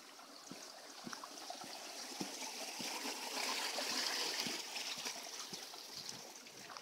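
A small forest stream running, its rushing growing louder to a peak about four seconds in and then fading. Soft footsteps on the dirt trail at a walking pace underneath.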